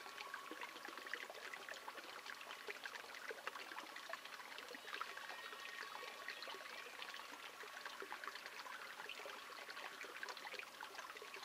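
Faint trickling water: a dense, even patter of small drips and splashes.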